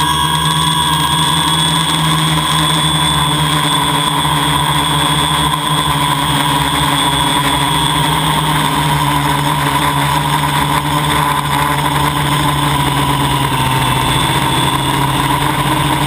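Homebuilt drone's motors and propellers whining steadily, heard loud and close from the camera mounted on the drone, the pitch wavering slightly as it manoeuvres.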